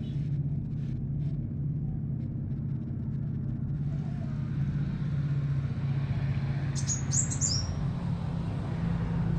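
A small songbird gives a quick run of four or five high, down-slurred chirps about seven seconds in, over a steady low hum.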